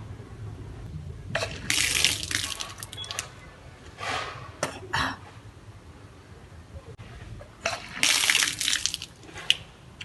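A person bringing up swallowed salted water in gushes during kunjal kriya (yogic vomiting), the water splashing down. There are two loud surges, about 1.5 s in and about 8 s in, with shorter splashes between them.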